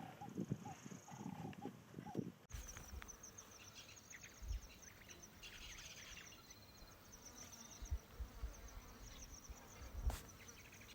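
Faint wild outdoor ambience. Short, repeated animal calls are heard for about two seconds. After an abrupt cut, a high, rapid pulsing chirp takes over and runs on, with a few soft low thumps.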